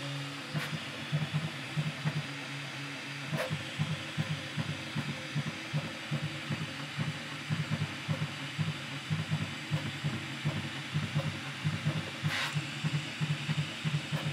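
Prusa MK4 3D printer printing quickly: stepper motors buzzing in rapid short pulses as the print head darts back and forth over small details, above the steady hiss of its cooling fans. Two brief clicks, about three seconds in and near the end.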